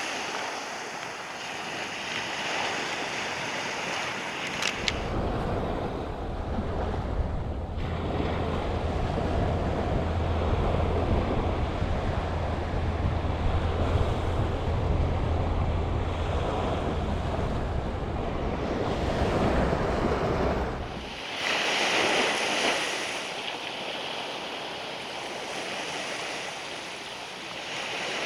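Waves washing onto a sandy beach, a steady hiss of surf. Wind buffets the microphone with a low rumble from about five seconds in until about twenty-one seconds.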